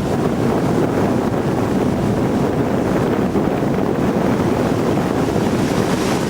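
Strong wind buffeting the microphone over the steady wash of heavy surf.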